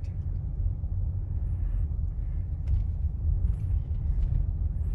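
Low, steady rumble of a car driving, heard from inside the cabin, with a few faint clicks in the second half.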